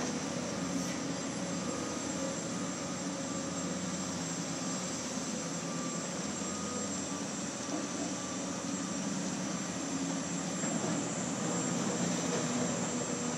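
Excavator diesel engines running steadily with a constant high whine over a low mechanical drone.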